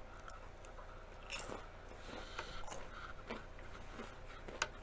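Close-up eating of deep-fried battered food: biting and chewing with scattered crunches and small clicks, and one sharp click near the end.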